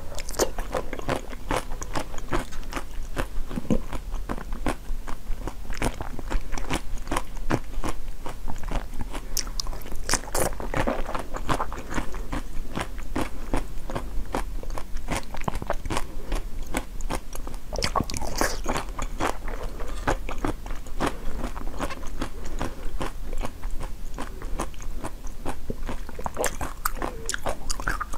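Close-miked biting and chewing of frozen red jelly pieces studded with nuts. A steady run of crisp crunches and crackles goes on throughout, with louder bites now and then.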